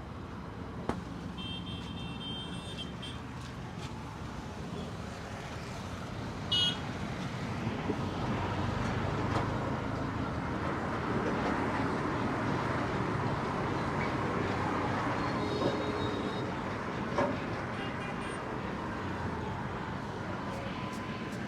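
Roadside traffic running steadily and growing louder about eight seconds in, with a short, loud, high horn toot about six and a half seconds in and fainter high toots now and then.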